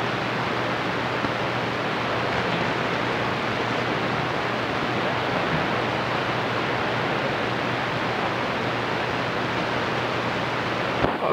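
CB radio receiver hissing with steady band static on an open channel, with no station coming through.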